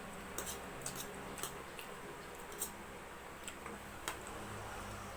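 Eating sounds: a handful of small, sharp, irregularly spaced clicks and smacks from chewing carbonara and the utensils, over a low steady hum.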